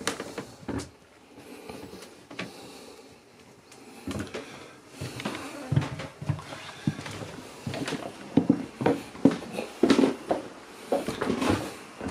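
Irregular knocks and thuds of someone walking through a small boat cabin: footsteps on the wooden floor and light bumps, sparse at first and busier from about four seconds in.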